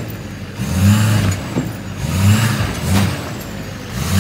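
Chevrolet Silverado 2500HD pickup engine revving in three short surges, rising and falling about a second apart, as the truck strains against a chain hooked to a tree stump.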